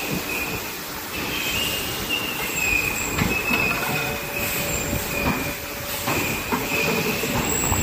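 CNC pipe bending machine working through a bend: a steady high whine that wavers a little in pitch, over mechanical clatter with several sharp knocks as the bend head and tube move.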